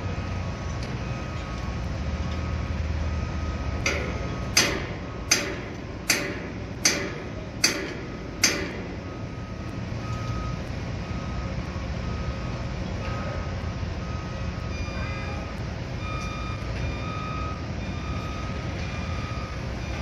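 Construction-site machinery running with a steady low rumble while a backup alarm beeps on and off. About four seconds in, six sharp ringing strikes come evenly, roughly three-quarters of a second apart; they are the loudest sounds.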